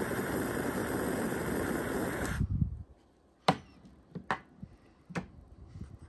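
Handheld gas torch hissing as its flame lights smoking wood chips, then shut off suddenly about two and a half seconds in. A few short, sharp knocks follow, about a second apart.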